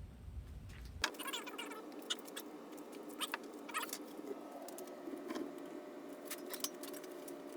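Scattered clicks and short squeaky scrapes, like small metal parts being handled and rubbed, over a steady low hum that sets in abruptly about a second in.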